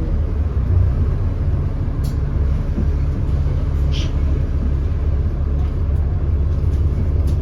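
6.7-litre Cummins ISB diesel engine of an Alexander Dennis Enviro400 double-decker bus running steadily under way, a constant low rumble heard on board, on a bus whose exhaust has a leak. A few short clicks and rattles come through about 2, 4, 6 and 7 seconds in.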